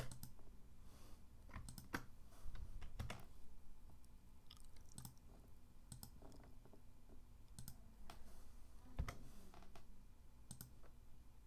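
Quiet, irregular clicking of a computer mouse and keyboard, about a dozen clicks spaced a second or so apart.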